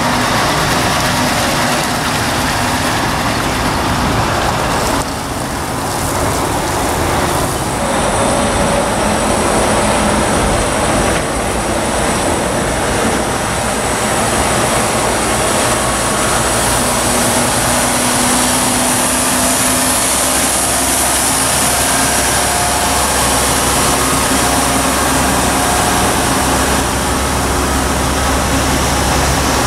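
Heavy truck diesel engines running as the trucks move slowly past: first a Scania R-series tractor unit, then, after a break about five seconds in, a Mercedes-Benz heavy-haulage tractor unit pulling a loaded low-loader, whose deep engine rumble grows stronger in the second half. A steady rushing noise lies under it all.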